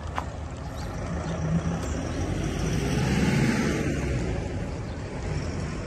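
Street traffic: a motor vehicle passing along the road, its engine and tyre noise swelling to a peak about three seconds in and then fading.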